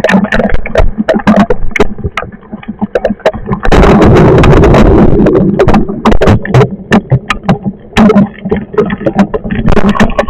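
Loud storm noise: wind buffeting the microphone in gusts, with a dense crackle of sharp hits.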